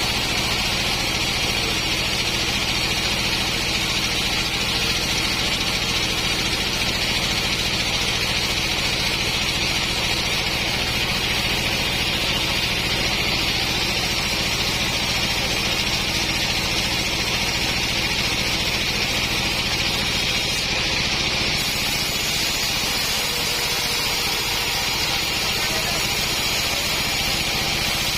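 A portable sawmill's engine running steadily, with an even, constant hiss higher up over its low hum.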